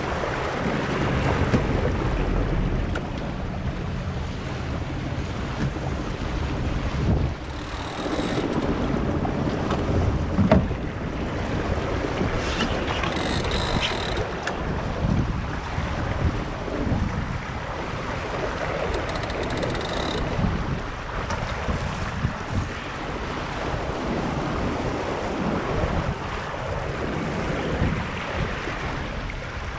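Wind buffeting the microphone over water rushing past the hull of an Impulse 26 sailboat under sail: a steady, rough noise with an uneven low rumble.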